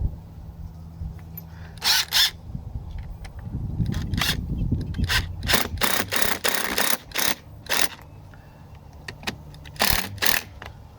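Black & Decker hammer drill driving a concrete screw into concrete: a steady motor hum, broken several times by louder noisy stretches as the screw bites in.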